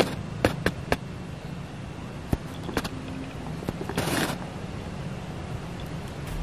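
A few small, sharp mouth clicks from lips and tongue working against a glass, mostly in the first second and again around two to three seconds in, with a short breathy hiss about four seconds in, over a steady low background rumble.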